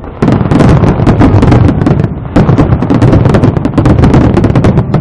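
Aerial fireworks going off in a dense barrage: a rapid run of bangs and crackling over a continuous low rumble, very loud, surging up just after the start.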